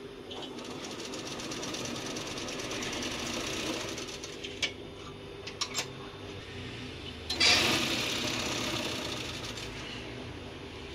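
Industrial mattress tape-edge sewing machine stitching binding tape around a mattress edge: it runs at speed for about four seconds, eases off with a few sharp clicks, then runs up loudly again about seven seconds in.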